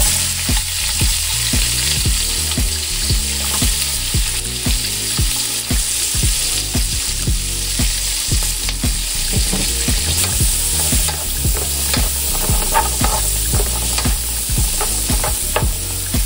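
Sliced onions and bell peppers sizzling in hot butter and oil in a nonstick frying pan, the sizzle starting suddenly as they go in and then holding steady. Frequent small clicks and taps come from stirring them in the pan.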